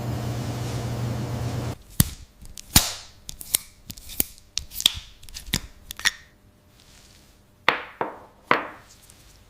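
A steady mechanical hum that cuts off suddenly, followed by a string of irregular sharp knocks and clicks, some with a short ringing tail.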